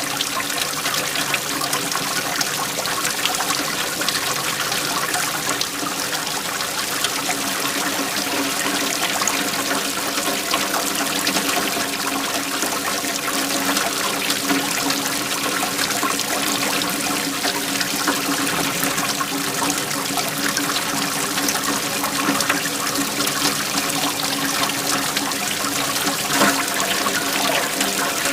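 Waterfall: water flowing and splashing steadily, without pause.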